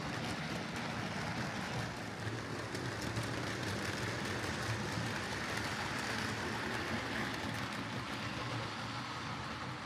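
Oxford Rail Dean Goods OO-gauge model locomotive running steadily on track: a constant motor whir with wheel-on-rail rumble.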